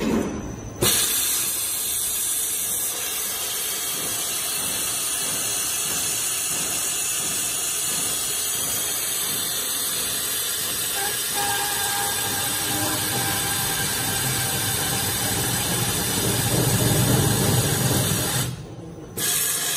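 ABS core slitting machine cutting a spinning ABS plastic core tube with its saw-tooth blade: a steady hissing cutting noise over the motor. It starts suddenly about a second in, grows louder with a low rumble near the end, and breaks off briefly just before the end.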